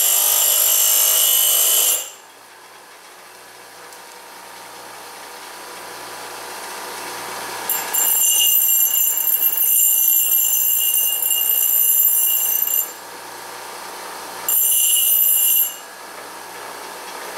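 Bench grinder's abrasive wheel grinding teeth into the end of a 2-inch steel pipe nipple, with loud, high-pitched grinding in three stretches: about two seconds at the start, about five seconds from eight seconds in, and a brief one near fifteen seconds. Between them the wheel runs on more quietly, off the metal.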